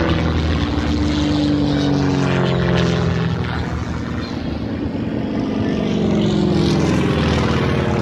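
Piston-engined propeller aircraft flying past in a display, their engine note sliding in pitch as they pass.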